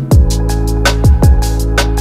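Background music with a steady beat: deep booming kick drums and crisp hi-hat ticks over sustained chords.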